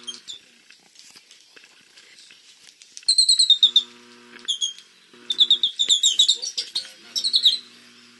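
Runs of rapid, high-pitched chirps, several short bursts in a row starting about three seconds in, the loudest run first.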